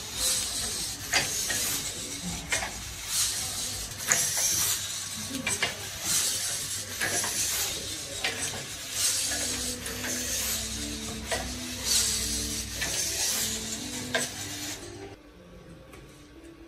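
Hobby servo motors of a 3D-printed quadruped robot dog buzzing and whirring in short repeated bursts, with sharp clicks between them and some short stepped tones. The sound drops away about fifteen seconds in.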